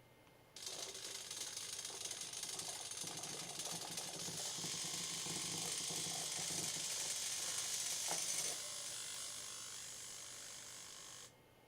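Small hobby servo motors whirring through their plastic gear trains as they swing the barrier gates of a toy level crossing. The whirr starts suddenly, runs for about ten seconds, easing a little in the last few seconds, then stops abruptly.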